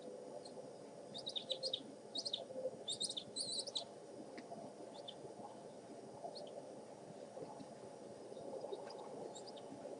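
Birds chirping: a quick run of short, high chirps for about three seconds, then scattered single chirps, over a steady background hiss.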